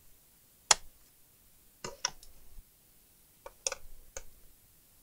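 A handful of sharp, irregular clicks and taps, the loudest about a second in, from a screwdriver and small screws being worked on a laptop's plastic case as it is taken apart.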